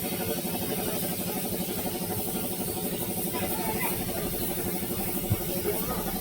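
A machine running steadily, with a fast, even pulsing.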